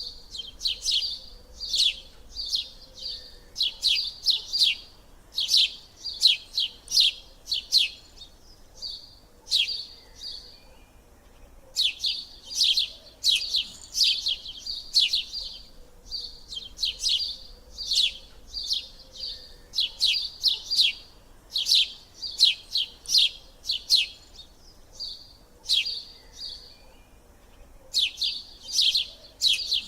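A small bird chirping in quick runs of short, high-pitched chirps, with brief pauses between the runs.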